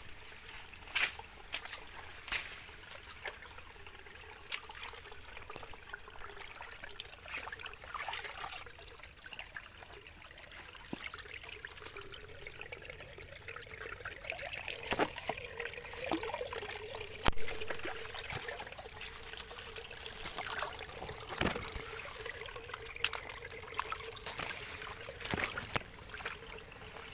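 Water trickling and splashing, with scattered sharp splashes and knocks, as hand nets are worked through water.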